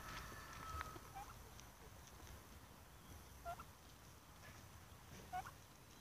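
Turkeys calling faintly: a high trilling call in the first second, then three short calls spread through the rest.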